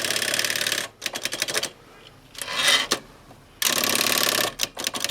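Typewriter carriage, just freed from its carriage lock, being moved by hand: two runs of rapid, even escapement clicks, with separate clacks between them and a short rasp near the middle.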